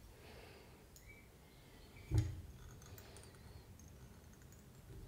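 Quiet handling at a fly-tying vise: faint small clicks of fingers, thread and bobbin on the fly, with one short dull knock about two seconds in.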